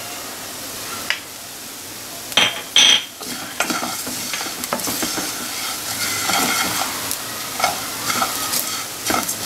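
Wooden spatula stirring coriander seeds, dals and freshly added poppy seeds as they dry-roast in a non-stick kadai, the seeds scraping and rustling against the pan with a light sizzle. A soft steady sizzle at first, two sharp knocks about two and a half seconds in, then continuous stirring.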